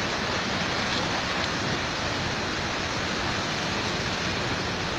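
Steady rushing of a flooded creek running high and fast.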